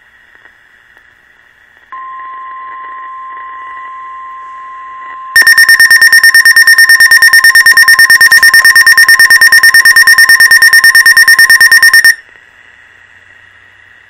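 NOAA weather alert radio sounding an alert. About two seconds in, the steady 1050 Hz warning alarm tone of a National Weather Service broadcast comes in. A few seconds later a much louder, rapid electronic beeping alarm takes over for about seven seconds and cuts off. The alert is for a severe thunderstorm warning.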